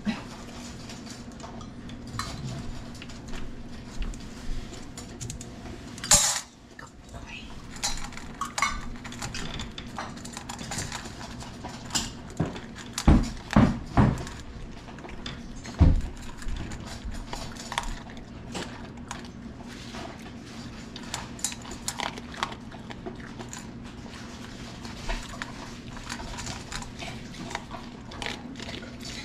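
A dog eating dry kibble from a stainless steel bowl in a metal stand: repeated clinks and crunches as the kibble and its muzzle hit the metal. There is a sharp clatter about six seconds in and a few louder knocks of the bowl about halfway through.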